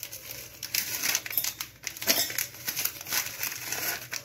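Plastic biscuit wrapper crinkling as chocolate-chip biscuits are taken out and set with light, irregular clicks into a stainless-steel mixer-grinder jar.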